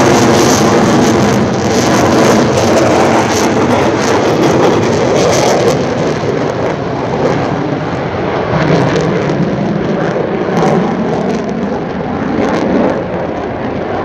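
Jet noise from an EA-18G Growler's twin turbofan engines flying overhead. It is loud and crackling at first, then fades to a duller rumble after about six seconds as the jet pulls away.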